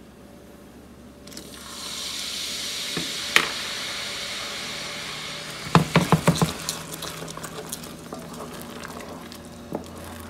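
Vanilla extract poured into hot, just-boiled butter sauce sizzles and hisses for a few seconds, starting about a second in. A wooden spoon then knocks quickly several times against the metal pot and stirs the thick sauce.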